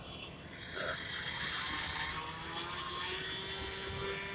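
Gas-powered saw running at steady high revs, a small-engine whine that comes in about a second in, as a firefighter cuts into the roof of the burning house.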